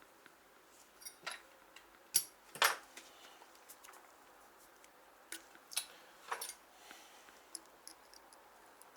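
Small metal parts of a bicycle rear hub clinking and clicking as they are handled: scattered sharp taps, the loudest two a little over two seconds in.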